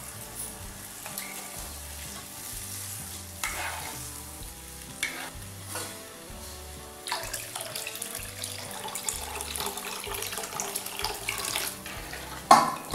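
Water poured into a kadai of kadhi mix (yogurt and gram flour) on the stove while a steel spatula stirs, scraping and clinking against the pan, with a loud clank near the end.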